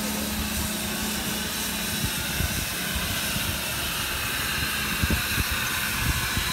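Steam locomotive at close range hissing steam steadily, with scattered low thumps from about two seconds in.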